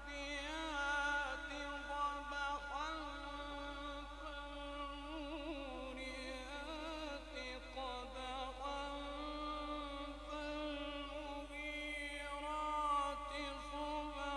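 A man reciting the Quran in the melodic Egyptian mujawwad style, drawing out long notes with wavering, gliding ornaments.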